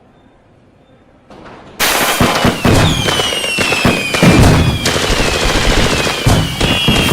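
Fireworks and firecrackers going off in a dense, rapid string of sharp bangs, with several descending whistles over them, starting suddenly just under two seconds in after a quiet stretch.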